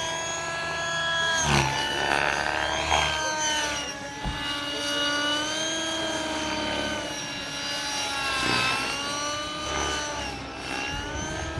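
Radio-controlled model helicopter flying overhead: a steady, high buzzing motor whine whose pitch slowly rises and falls with the throttle, dipping briefly about eight to nine seconds in as it passes.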